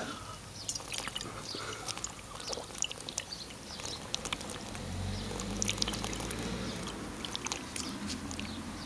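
A man gulping vodka straight from a half-litre glass bottle in one long swig, with faint glugs and small scattered clicks.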